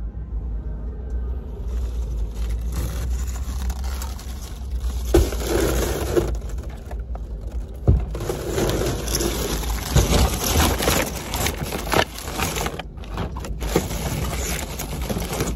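Rustling, scraping and clattering of things being handled, with scattered sharp knocks, over a steady low rumble.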